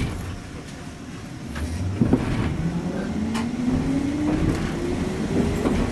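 Hankai tram pulling away: its traction motor whine rises steadily in pitch from about two seconds in as the car picks up speed, over the low rumble of the running gear. There is a click at the very start.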